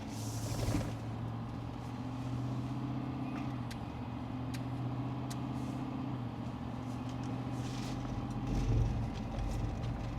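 A car or truck driving along the road: steady low engine and road hum, with a brief louder swell about half a second in and again near the end.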